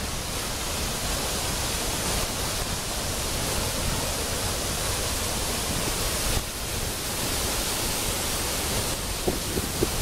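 Waterfall and its rocky stream rushing: a steady, even wash of falling water, dipping briefly about six seconds in.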